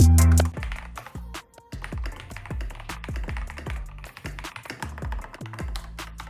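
Typing on an Epomaker Brick 87 mechanical keyboard with Gateron Pro Yellow 2.0 linear switches: quick, irregular key clacks with a short pause about a second and a half in. Quiet background music with a bass line runs under it, after a louder musical passage cuts off about half a second in.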